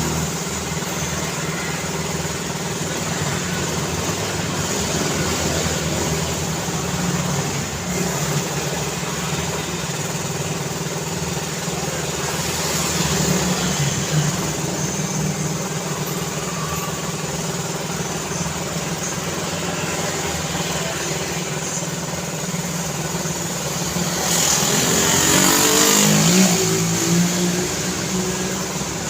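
Steady road traffic with vehicles passing. Near the end one louder vehicle goes by, its engine note falling in pitch as it passes.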